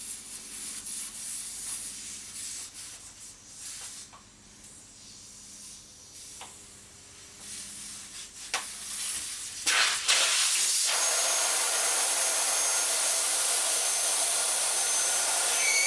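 Air hissing steadily out of a motorcycle tyre through its valve stem with the core unscrewed, starting suddenly about two-thirds of the way in after faint scraping and a few clicks from the valve core wrench. Near the end a whistle rises in pitch over the hiss.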